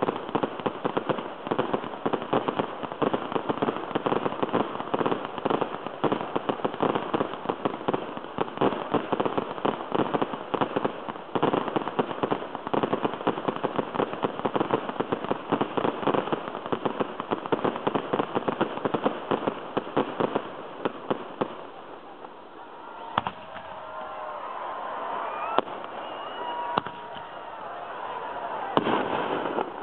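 Fireworks display, ground fountains and aerial shells going off together in a dense, continuous crackling and popping. After about twenty seconds it thins to a few single bangs while a crowd's voices rise.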